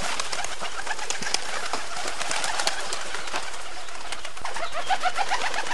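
Racing pigeons in a loft: a steady, busy mix of many short chirps, squeaks and clicks, with a run of short rising chirps about four and a half seconds in.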